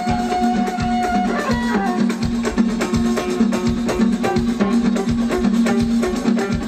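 Live Moroccan aita music: a bowed violin line with held notes sliding in pitch, plucked strings, and a quick, steady hand-drum beat.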